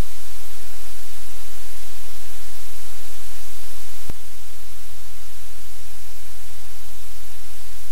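Steady, loud static hiss with a low hum underneath, and a single sharp click about four seconds in, after which the hiss is slightly quieter.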